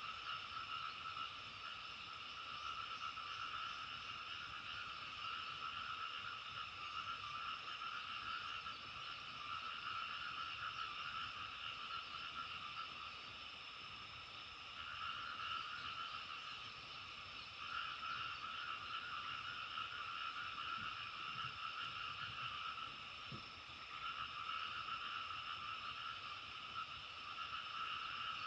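A dense chorus of many frogs calling together, continuous and pulsing, easing and swelling again every few seconds.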